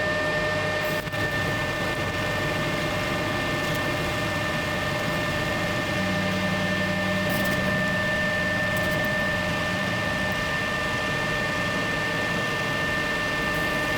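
Metal lathe turning a high-tensile steel barbell shaft: a steady whine held at one pitch over the even hiss of the cut.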